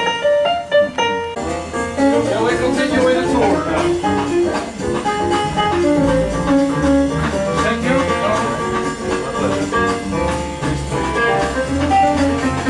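Instrumental music with a melody over a bass line.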